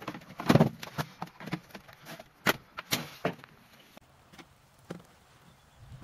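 Hard plastic clicks and clunks of a Makita 18V lithium-ion battery pack being handled and slotted into a cordless mower. The loudest clunk comes about half a second in, with a few more sharp clicks over the next three seconds, then only a few faint knocks.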